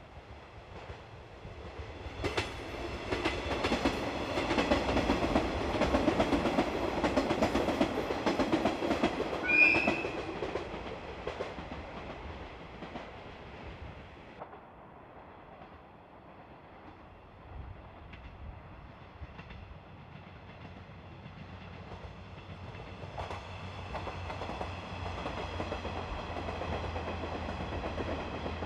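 KiHa 110 series diesel railcar train passing: wheels clattering on the rails and diesel engines running, swelling to a peak about ten seconds in and then fading, with a brief high note at the peak. Train running sound builds again in the last few seconds.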